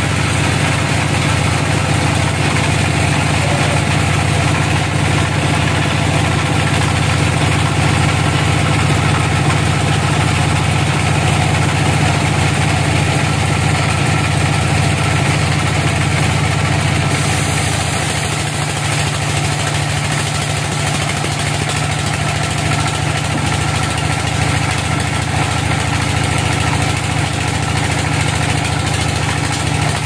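Log band sawmill running, its blade cutting a slab from a large log with a steady loud drone. About seventeen seconds in, the sound shifts and drops a little in level.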